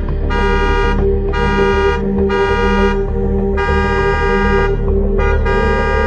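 Car horn sounded in Morse code: four long honks with short gaps, the last running on past the end, over a steady low hum.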